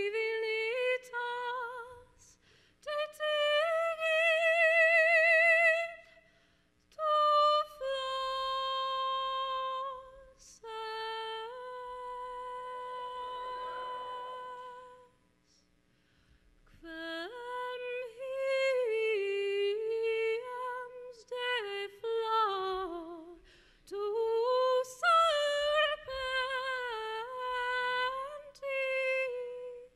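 A solo female voice singing unaccompanied, long held notes with a wide vibrato, broken by short pauses and one longer pause about halfway through.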